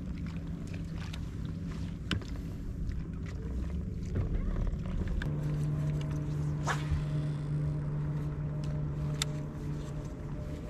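Bow-mounted electric trolling motor of a bass boat humming steadily, louder from about halfway through, with a few sharp clicks of fishing tackle over low wind and water noise.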